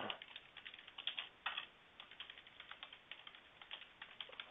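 Computer keyboard typing, faint: a string of quick, irregular keystrokes.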